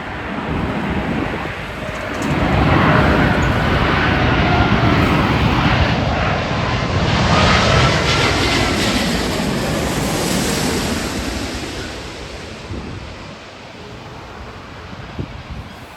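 Jet airliner engines passing close by. The roar builds over a couple of seconds, holds loud with a whine that slides in pitch, then fades away over the last few seconds.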